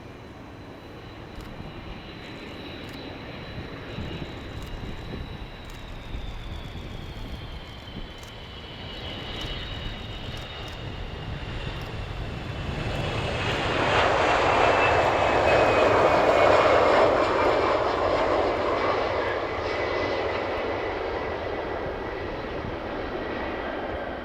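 Four-engine military jet passing by. Its turbine whine falls in pitch as it goes past, and the engine noise swells to a peak a little past the middle before easing off.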